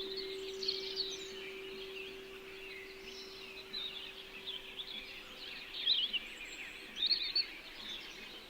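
A singing bowl's steady ringing tone, struck just before, slowly fades out about seven seconds in. Small birds chirp and twitter throughout, loudest in quick bursts near the end.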